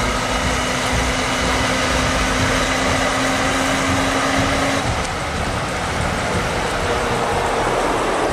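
Heavy prime-mover trucks' diesel engines running as they haul an oversize load past, with road noise. A steady low drone stops about five seconds in.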